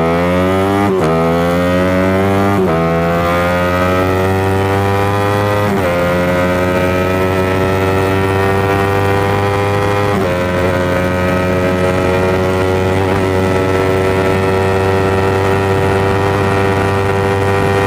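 Suzuki Satria FU 150 single-cylinder four-stroke engine at full throttle, accelerating up through the gears. Its pitch climbs, drops sharply at each shift about 1, 2.5, 6 and 10 seconds in, then rises slowly and levels off in a high gear. It is a test run of the rejetted carburettor and new CDI ignition map, and the engine pulls cleanly with no coughing.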